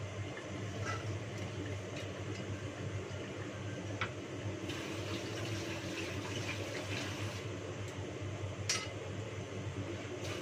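Dishes clinking at a kitchen sink as water runs from the tap, with a few sharp clinks, the loudest near the end. A steady low hum sits underneath.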